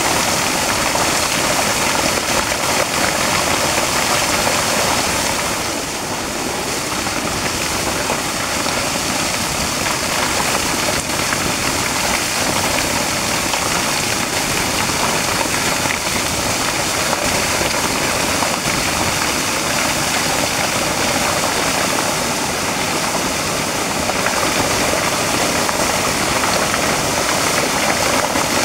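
Steady rushing and splashing of a strong jet of water pouring from a pipe onto rocks and gravel.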